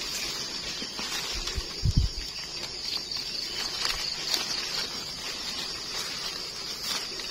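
Steady high-pitched drone of insects, with light rustling of dry leaf litter as gloved hands pick termite mushrooms, and a dull low bump about two seconds in.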